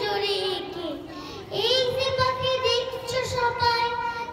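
A young girl's voice through a microphone, reciting a Bengali poem in a sing-song way: long held, drawn-out notes close to singing, with a short break about a second and a half in.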